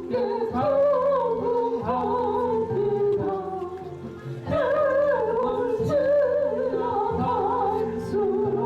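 A solo voice singing a hymn with wide vibrato over steady backing chords. The singing drops off briefly about four seconds in, then comes back louder.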